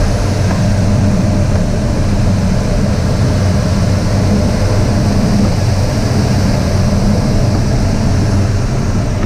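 Loud, steady rush and low rumble of airflow around the canopy of a Schleicher ASK 21 glider, heard from inside the cockpit during aerobatics; there is no engine.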